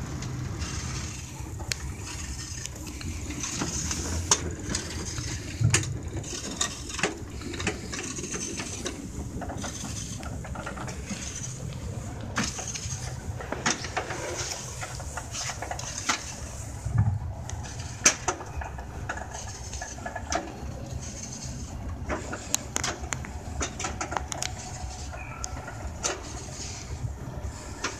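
5-inch gauge miniature train rolling along its steel track, a steady low rumble from the wheels with many irregular clicks and clacks.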